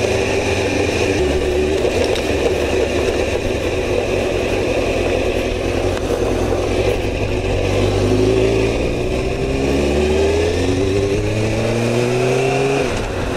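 Motorcycle engine running under way, with wind noise on the rider's camera microphone. From about seven seconds in, the engine note rises steadily as the bike accelerates, then falls away near the end.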